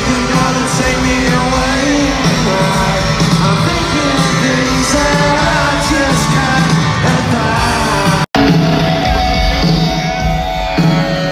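Live rock band playing with a singer, heard from high in an arena's stands. The sound cuts out for an instant about eight seconds in.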